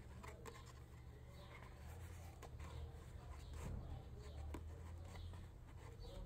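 Faint rustling, sliding and soft ticks of a folded paper photo insert being handled and opened out by hand, over a low steady hum.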